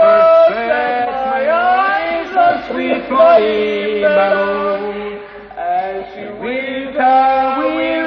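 Male voices chanting in long, drawn-out sung notes, with short breaks between phrases.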